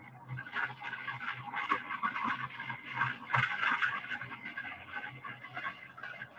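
Roar of the Saturn V rocket's engines at the Apollo 11 launch, played from film over video-call audio so it comes through as a rough, fluctuating rush. It swells about half a second in and is loudest in the middle.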